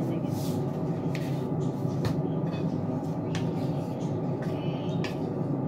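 Wooden spatula stirring potatoes in broth in a stainless steel pot, with several sharp taps against the pot, over a steady low kitchen rumble.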